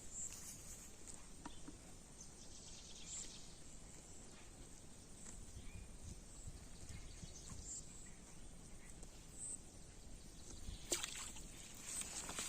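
Quiet outdoor background noise with a few faint high chirps and one sharp click about eleven seconds in.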